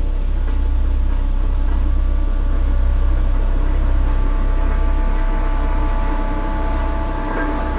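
Road roller (roller compactor) running: a steady heavy low rumble from its diesel engine and drum, with a constant hum of engine tones above it.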